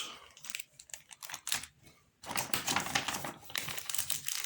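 Small ration-pack packets being handled and set down: a quick run of light clicks and crinkling of plastic wrap, with a short pause about two seconds in.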